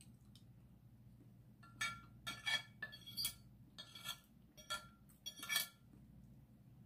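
Metal spoon and fork scraping and clinking against a ceramic plate while cutting and scooping food. About seven short ringing strokes come in quick succession between about two and six seconds in.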